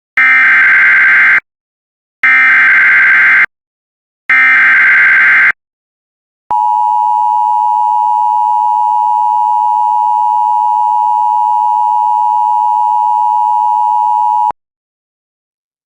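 Emergency Alert System header: three bursts of SAME digital data tones, each about a second long, then a steady attention tone lasting about eight seconds that stops abruptly. Together they signal the start of an emergency alert, here a severe thunderstorm warning.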